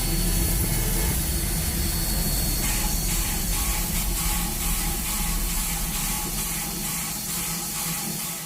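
Steam locomotive hissing steam over a low, steady rumble, fading out quickly at the very end.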